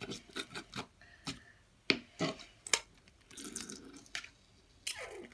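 Clear glue and borax activator being stirred with a plastic spoon in a plastic bowl: a string of sharp, wet, sticky clicks and drips as the slime starts to form.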